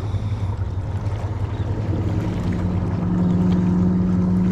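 Motorboat engine running steadily with a low hum, growing louder from about two seconds in as the boat comes closer.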